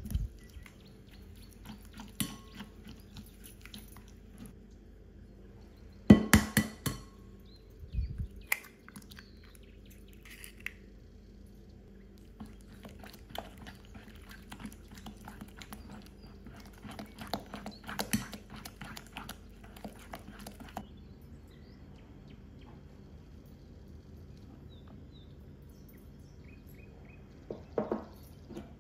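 Silicone spatula stirring melted butter and sugar in a glass mixing bowl: irregular scraping with clinks and knocks against the glass, including a cluster of louder knocks about six seconds in and another around eighteen seconds.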